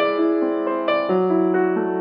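Background piano music: a gentle melody of soft notes changing about every half second over a steady lower note.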